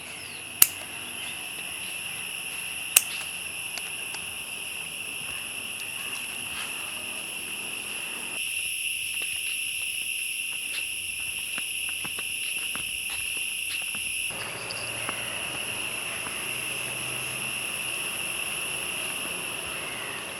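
Steady, high-pitched chirring of insects, unbroken throughout, with two sharp clicks in the first few seconds.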